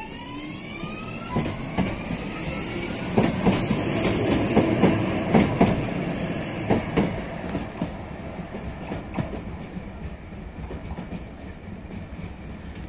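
Alstom Citadis Dualis tram-train passing close by. Its electric traction motors whine, rising in pitch over the first couple of seconds as it picks up speed, then its wheels clack over rail joints and points, loudest a few seconds in, and fading away.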